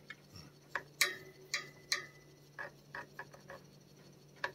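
Irregular sharp clicks and taps as a long back scratcher with a plastic tip is worked against a cat's chest and the cage, over a low steady hum.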